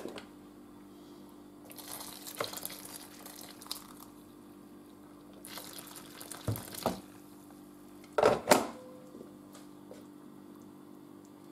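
Water poured from a jug into a multicooker pot already holding sauce, splashing into the liquid in two pours of about two seconds and a second and a half. Two loud knocks follow about eight seconds in.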